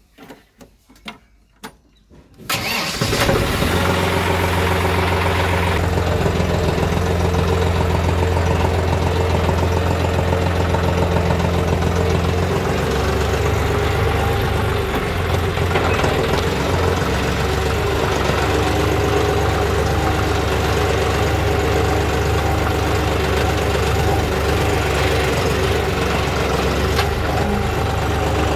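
A few light clicks, then a John Deere 5210 tractor's 50 hp diesel engine starts about two and a half seconds in. It keeps running steadily as the tractor pulls away and drives on.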